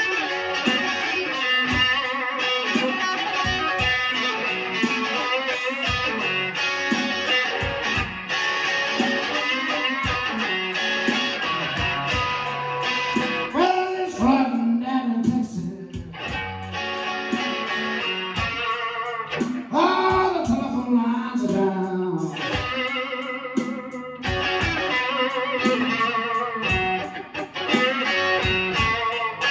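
Stratocaster-style electric guitar playing slow blues. About halfway through, a man sings a line over it for several seconds before the guitar carries on alone.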